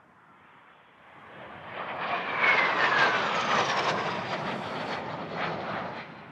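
Low-flying military jet passing close by: the engine noise swells over a second or so, peaks with a whine that falls in pitch as the jet goes past, then fades away.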